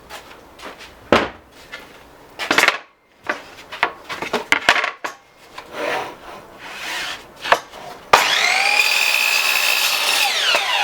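Wood knocked and slid into place, then, about eight seconds in, the Scheppach HM100LXU sliding compound mitre saw's motor switches on with a sudden loud, steady high whine, its pitch dropping near the end as the blade goes into a board of ash.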